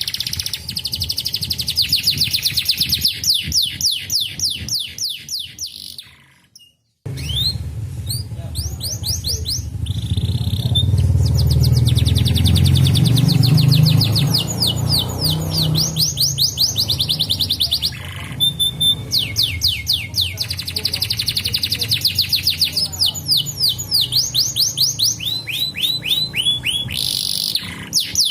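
Domestic canary singing fast trills of rapidly repeated falling notes, in phrases that follow one another with short breaks. The sound cuts out briefly about six seconds in, and a low rumble runs under the song for several seconds after.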